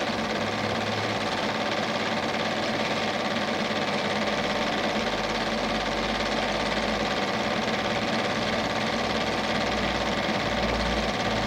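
Steady mechanical whirr of a cine projector running, an even machine noise with steady tones through it and no break.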